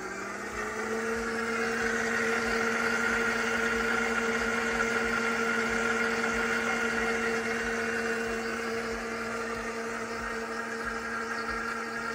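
ChefWave Milkmade nut milk maker's motor spinning up, rising in pitch just after the start, then running at a steady whir.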